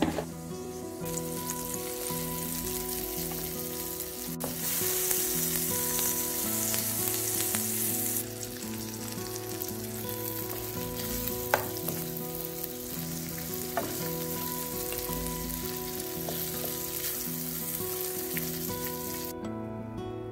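Sliced sausage, tomato and egg sizzling in hot olive oil in a frying pan as they are stirred, with a couple of sharp taps of the utensil against the pan. The sizzle is loudest for a few seconds about a quarter of the way in and drops away shortly before the end.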